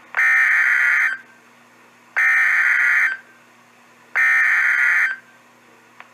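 Emergency Alert System SAME header on NOAA Weather Radio: three buzzy bursts of digital data tones, each about a second long with about a second between them. They encode a severe thunderstorm warning.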